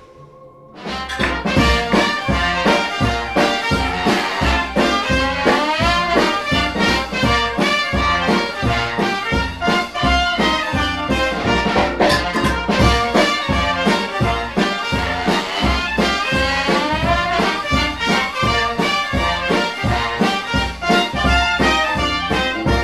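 Lively brass-led jazz music with a steady beat, starting suddenly about a second in.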